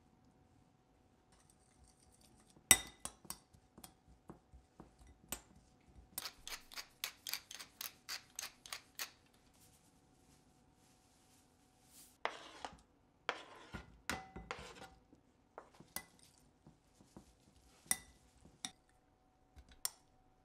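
Metal spoon clinking and scraping against a glass mixing bowl while stirring chopped leek: one sharp clink about three seconds in, then a quick run of about a dozen clinks, then scattered clinks and short rustles.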